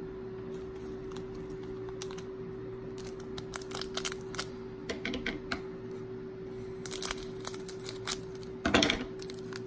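Foil wrapper of a Pokémon booster pack crinkling and crackling as it is handled, in scattered bursts from about three seconds in that get busier near the end, over a steady faint hum.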